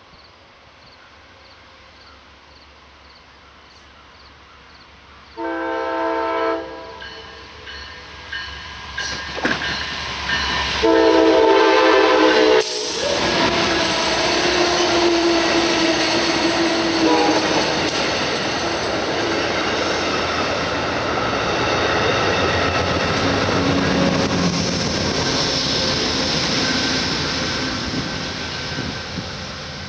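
Amtrak Downeaster passenger train with a GE P42 diesel locomotive approaching with a growing engine drone and sounding its horn in two long blasts, the second the loudest. It then passes close by with a steady rush of wheel and rail noise that fades as it moves away near the end.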